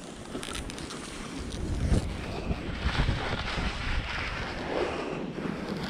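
Skis sliding through snow with wind on the microphone, and a couple of brief knocks about two and three seconds in.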